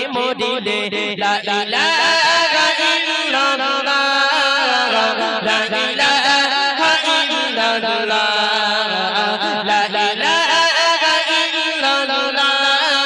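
Male voices singing a Bangla gojol, an Islamic devotional song, through microphones in a chant-like melody over a steady low drone.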